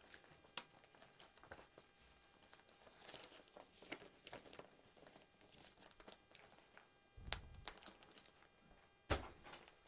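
Faint crinkling and rustling of a clear plastic garment packaging bag being handled, as a folded suit and its printed card are slid back inside. Two louder handling noises come near the end.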